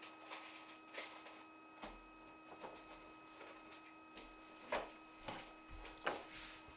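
Faint scattered rustles and soft knocks of a paper gift bag being handled and someone moving about, over a steady low hum.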